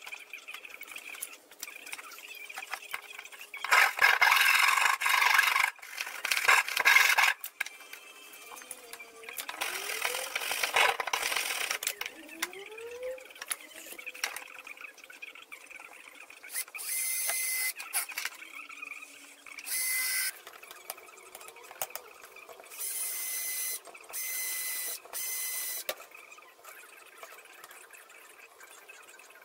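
Cordless drill driving screws into wood in short whirs of about a second each, about five of them in the second half, after louder bursts of tool and hardware noise in the first half.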